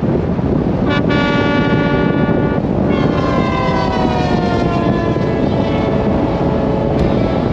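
Airplane engines running loud: a steady rushing noise with a high whine that holds level, then slowly falls in pitch from about three seconds in.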